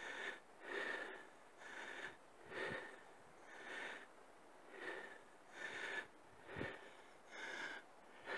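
Quick, regular breaths close to the microphone, about one a second, soft and faint, like someone breathing hard while filming.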